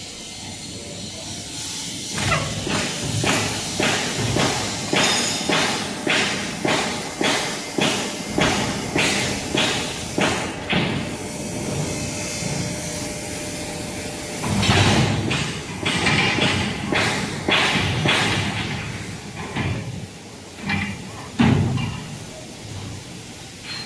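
Small interlocking soil-brick making machine working through a pressing cycle: a fast series of knocks, about two a second, then a louder stretch of hissing and clatter, and a few heavy thumps near the end as the brick is pressed and pushed out.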